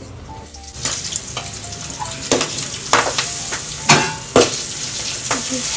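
Cornflour-coated sweet corn kernels hitting hot oil in an aluminium kadai and frying with a sizzle that builds about a second in. It is broken by several sharp pops, the loudest about four seconds in: kernels bursting and spitting in the oil.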